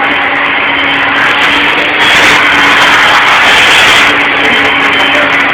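Handheld pet blow dryer running steadily: a motor whine under rushing air. It grows louder and hissier for about two seconds in the middle.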